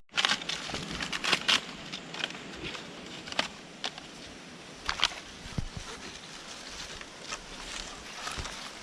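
Dry sticks and twigs being handled and broken: irregular cracks and snaps with some rustling, thickest in the first two seconds.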